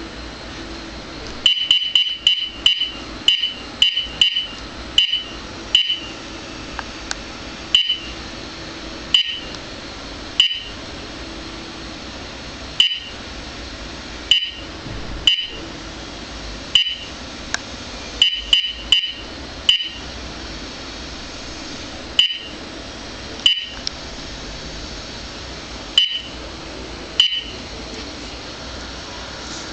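Valentine One radar detector sounding its alert: short high beeps in irregular clusters, sometimes three or four in quick succession, elsewhere one every second or two, set off by signal leaking from a Beltronics RX65 radar detector beside it.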